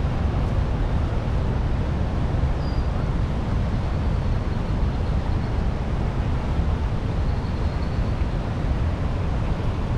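Niagara River rapids rushing steadily, a continuous noise heavy in the low range with no breaks.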